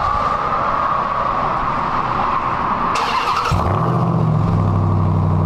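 Ram 1500 TRX's supercharged 6.2-litre Hemi V8 being started. A steady high tone is heard at first; about three seconds in the starter cranks briefly, then the engine catches and settles into a steady idle.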